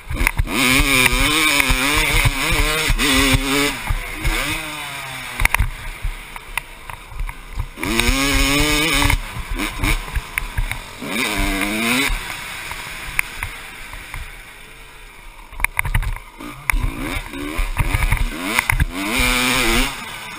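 1996 Honda CR250's 250cc single-cylinder two-stroke engine revving hard and dropping back again and again as it is ridden through the gears, with wind rushing over the microphone. About two-thirds of the way in the engine falls away for a few quieter seconds, then winds up again.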